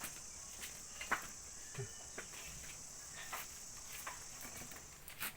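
Insects chirring steadily in a high, even drone that stops near the end, with a few light clicks and knocks scattered through it.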